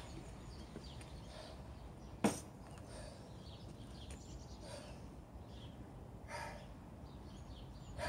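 A single sharp click or knock about two seconds in, over a faint low outdoor rumble.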